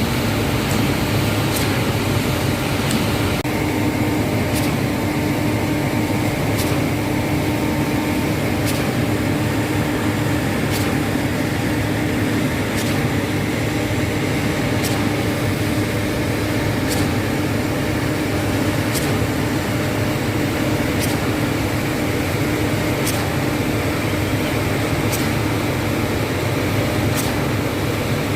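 Putzmeister truck-mounted concrete pump running, a loud, steady mechanical drone with a sharp tick about every two seconds.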